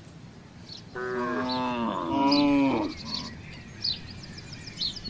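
A cow mooing once: a long call of about two seconds that starts about a second in and grows louder in its second half.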